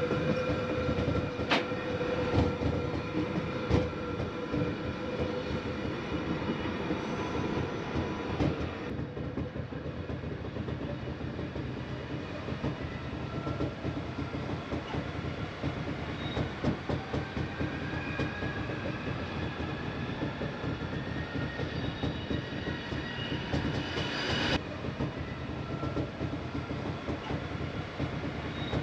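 Glacier Express train running on its rails, heard from aboard: a steady rumble of wheels and carriage, with faint whining tones that drift slowly in pitch. Two sharp clicks stand out in the first few seconds.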